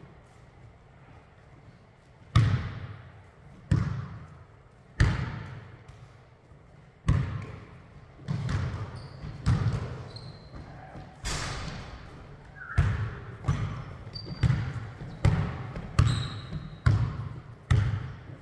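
Basketball bouncing on a hardwood gym floor, each bounce echoing in the hall. The bounces start about two seconds in, spaced out at first, then come steadily about once every second, with a few short sneaker squeaks on the floor.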